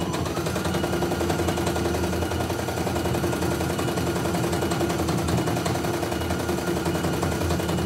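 CNY E900 computerised embroidery machine stitching, its needle clattering in a fast, even run of strokes over a steady motor whine. The whine climbs in pitch just after the start and dips again near the end.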